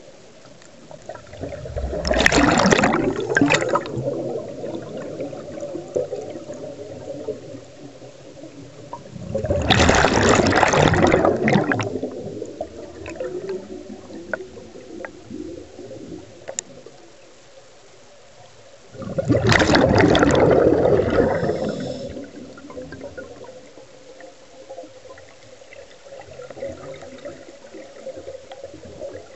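Scuba diver breathing out through a regulator, heard underwater: three loud rushes of bubbles, each lasting two to three seconds, about nine seconds apart, with quieter water noise between.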